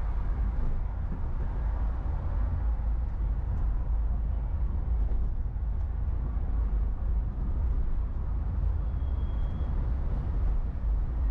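Steady low rumble of a car driving through city traffic: road and engine noise, strongest in the deep bass. A short, faint high whine comes through about nine seconds in.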